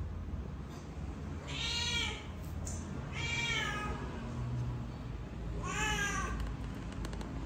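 Young cat meowing three times, short high calls about a second and a half apart.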